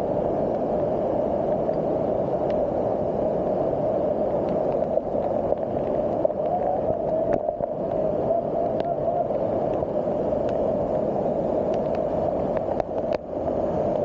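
Waterfall pouring down close by: a steady, dull rush of falling water, briefly dipping about a second before the end.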